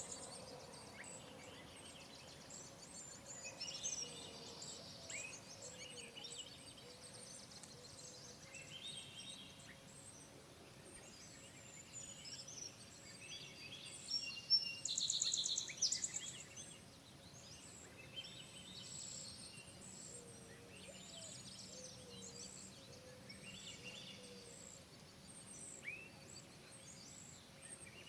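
Several wild birds chirping and singing in short, overlapping phrases, with one louder, rapid high trill about halfway through.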